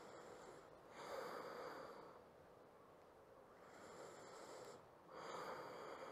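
Faint, slow breathing: a few long breaths in and out while resting in a yoga pose.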